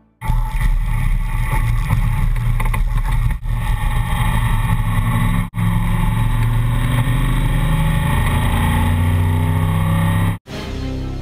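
Roush 342 V8 engine of a Backdraft TD roadster running hard at racing speed, heard from the open cockpit. The sound breaks off for an instant twice, and again near the end, after which it is quieter.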